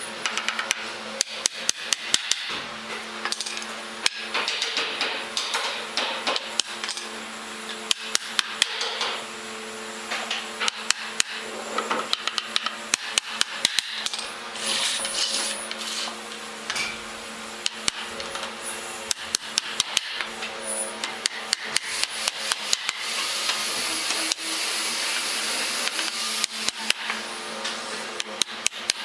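Small hammer striking wooden pallet boards in runs of quick, sharp knocks, with short pauses between the runs.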